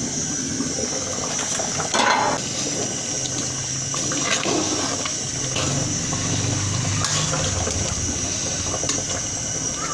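Steady rush of running water with a high hiss, broken by a few faint light knocks.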